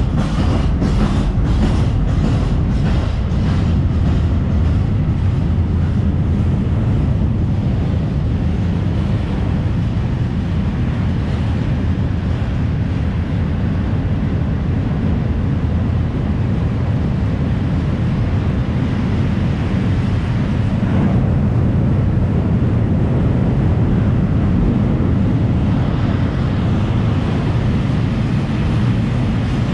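Freight train of high-sided open coal wagons rolling past at close range: a steady heavy rumble of wheels on rail. Over the first few seconds there is a run of regular wheel clacks, about two a second.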